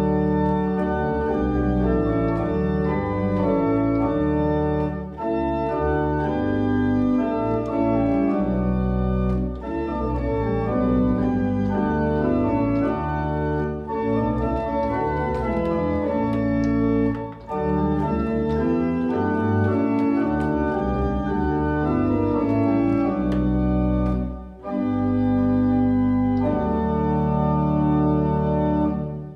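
Church pipe organ playing chords over a deep pedal bass, one chord after another, with a brief break about 25 seconds in.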